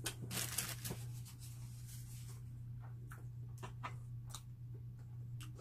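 Someone eating bread: a scratchy crackle of crust lasting about a second at the start, then scattered small clicks of chewing. A low steady hum runs underneath.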